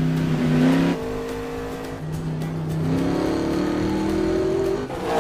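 Race car engine revving as the car slides through turns on dirt, its note climbing steadily over the last couple of seconds, with film music underneath.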